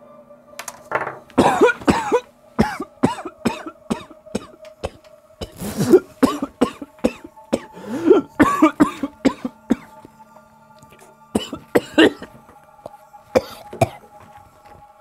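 A man coughing and gagging in three fits of harsh bursts, retching at a foul smell.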